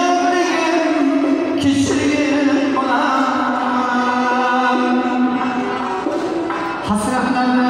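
A live Uzbek song: a man's voice singing long held notes, accompanied by a frame drum (doira) that strikes sharply twice, about two seconds in and near the end, and a small stringed instrument.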